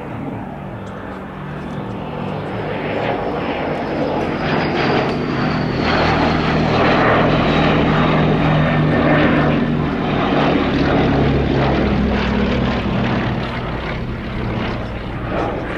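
Two vintage propeller aircraft, a Westland Lysander and a Gloster Gladiator biplane, flying past on their Bristol Mercury radial engines. The engine sound builds to a peak about halfway through and then fades, with a high whine dropping in pitch as they pass.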